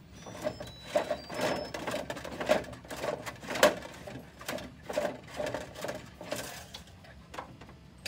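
Plastic filament spool and filament being handled at a 3D printer's spool holder: irregular clicks, knocks and rattles, about two a second, as the spool is worked loose and the filament is drawn out of its guide tube.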